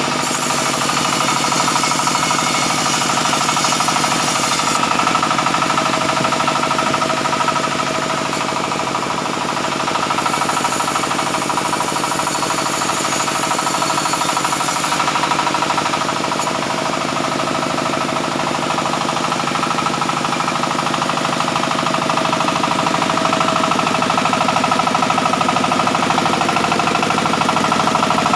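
Sawmill saw running steadily while cutting mahogany. A high hiss of the blade going through the wood comes twice: for about the first five seconds, and again from about ten to fifteen seconds in.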